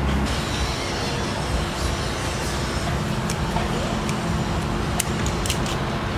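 Steady rumble of motor traffic with a low hum, and a few sharp clicks in the second half as a knife works the pumpkin's rind.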